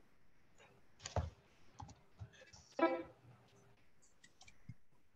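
Scattered light clicks and keyboard taps coming through a video call, with a sharper knock about a second in and a brief pitched tone just before three seconds in.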